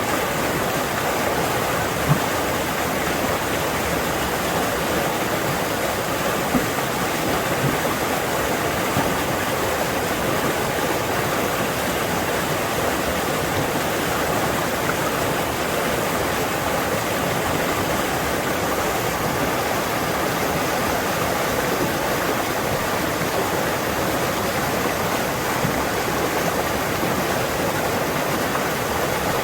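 Fast forest stream rushing over its bed: a loud, steady wash of running water, with a few short louder ticks in the first ten seconds.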